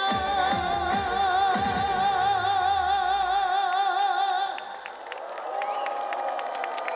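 A male singer holds the last long note of the song with a wide vibrato over the live band's closing drum hits. The note ends about four and a half seconds in, and scattered clapping from the audience follows.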